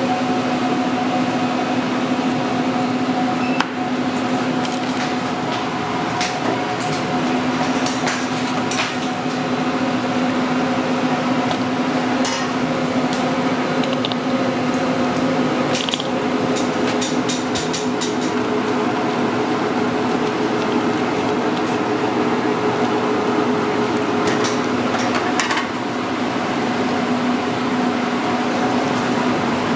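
Steady mechanical hum of kitchen ventilation with a fixed low drone, under scattered clinks and clatter of utensils and dishes.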